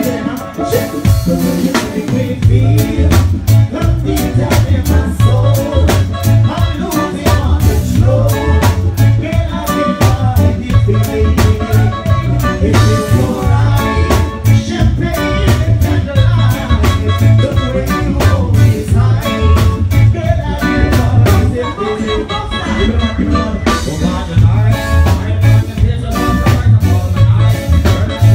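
Live band music played over a PA system: a pulsing bass line, a steady drum-kit beat and singing, in an upbeat, ska-like groove.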